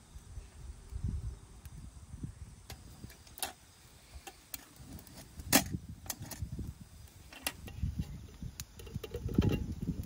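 Wood fire crackling with sharp pops, the loudest about halfway through, over low rushing puffs of air blown through a duralumin fire-blowing pipe to fan the flames, the strongest near the end.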